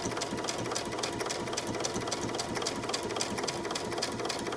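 Sewing machine running steadily, stitching through cork fabric and zipper tape, with a fast, even run of needle clicks.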